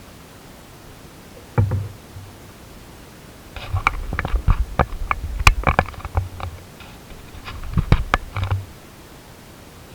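Irregular knocks and clattering against the hull of a stitch-and-glue canoe: one knock, then two clusters of quick knocks and clicks with dull thuds, over a steady hiss.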